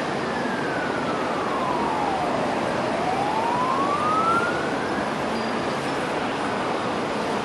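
Emergency-vehicle siren wailing: its single tone falls slowly in pitch over about two and a half seconds, rises again, and fades out about five seconds in. A steady background rush runs underneath.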